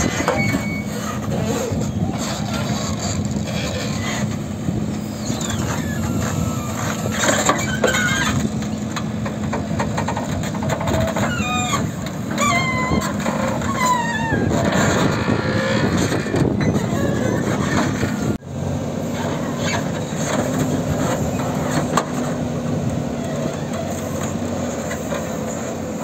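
JCB backhoe loader's diesel engine running steadily under load while the backhoe digs a trench in dry soil. The sound drops out briefly about 18 seconds in.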